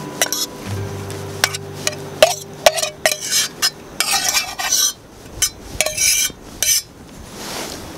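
A metal utensil scraping and clinking inside a metal canteen cup as cooked food is scooped out into a plastic bag, in a series of short scrapes and taps, busiest in the second half.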